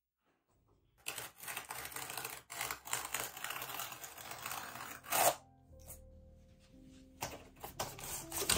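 Rustling, scraping handling noise, then cardboard tearing as the edge of a large flat-pack furniture box is ripped open. Soft background music comes in about halfway through.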